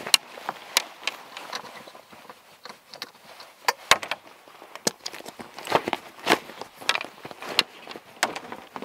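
Strap buckles on a rooftop tent's cover being unclipped one by one: a series of sharp clicks, irregularly spaced, over the rustle of the straps and the stiff fabric cover.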